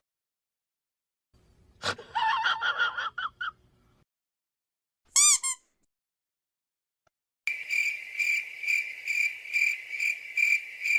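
A string of separate cartoon-style sound effects with silence between them: a click and a quick run of squeaky pitched notes about two seconds in, and a short warbling whistle around five seconds. Then, from about seven and a half seconds, a cricket-chirping effect repeats about two and a half times a second.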